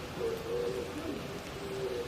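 Oriental turtle doves cooing in repeated low phrases, one after another, over a steady background hiss of the wet forest.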